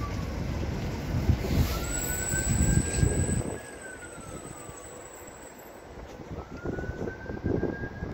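Tyne and Wear Metro train running out of the platform and away, its rumble and wheel noise dropping off sharply about three and a half seconds in. A faint distant siren wails through it, rising, holding and falling about every four seconds.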